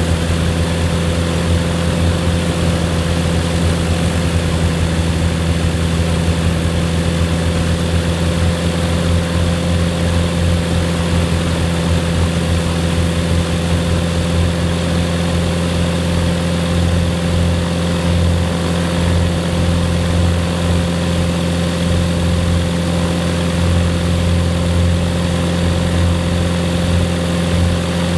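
Rotax 914 turbocharged flat-four aircraft engine running at a steady idle, propeller turning, with no change in speed.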